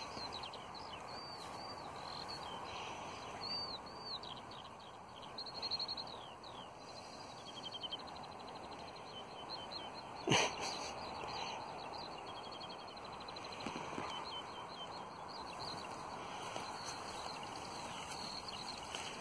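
Songbirds singing in repeated short chirps and quick trills over a steady outdoor hiss, with one sharp click about ten seconds in.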